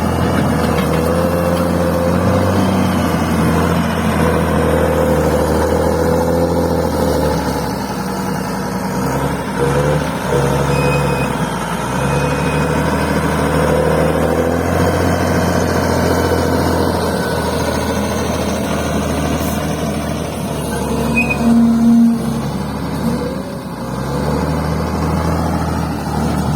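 Bulldozer's diesel engine working as it pushes and levels fill soil. The engine note rises and falls with the load, dips a little about a third of the way in, and swells briefly louder near the end.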